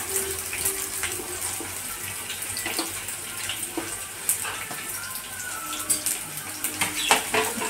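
Sliced onions sizzling in hot oil in a kadai: a steady frying hiss with scattered small crackles.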